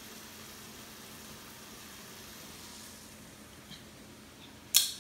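Faint steady hiss of tomato sauce simmering in a stainless sauté pan. Near the end comes a single sharp clink.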